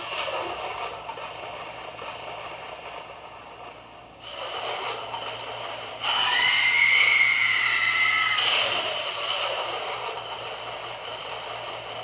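Spooky sound effects from an animated Halloween prop's small speaker: a wavering electronic wail that fades, starts again about four seconds in, and comes back louder about six seconds in with a wailing tone that rises and falls before slowly dying away.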